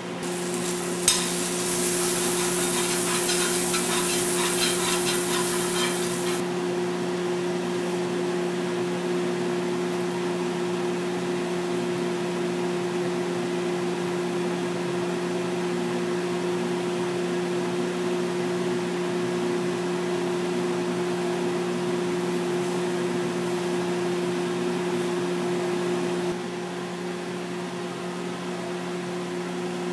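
Kitchen range hood fan running with a steady low hum. For the first six seconds or so a crackling sizzle sounds over it, with a sharp click about a second in; the hum drops slightly in level near the end.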